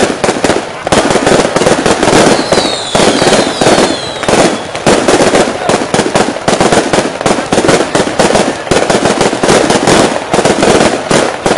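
Fireworks going off in a dense, continuous barrage of rapid bangs and crackles. A few falling whistles sound about two to four seconds in.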